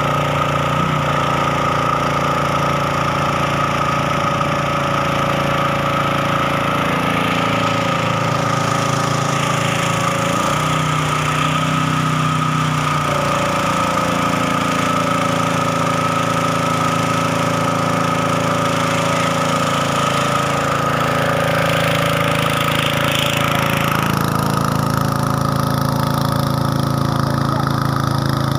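Robin EY20 5 hp single-cylinder four-stroke petrol engine running steadily under load, driving a belt-driven power sprayer pump, with the hiss of water jetting from the spray gun.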